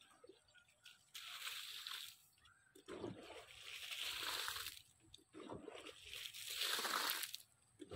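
Water poured out onto vegetable beds in three splashing douses, each lasting a second or two.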